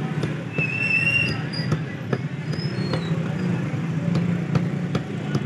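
A cleaver and knife knock irregularly on a wooden stump chopping block as a fish is cut on it, over a steady low hum.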